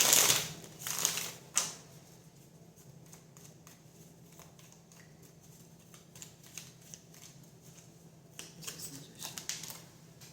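Tarot cards being handled and shuffled: a few loud rustles and flicks in the first two seconds, faint card ticks after, and another run of rustling a little over 8 seconds in.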